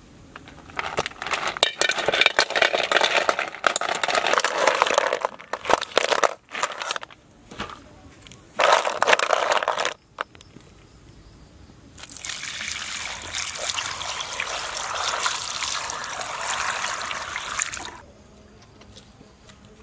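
Sizzling and hissing from apple snails cooking in a hot frying pan over a wood fire. It starts as rough, crackling bursts with scattered clicks, one stretch cutting off suddenly, then becomes a steady hiss for about six seconds that stops abruptly.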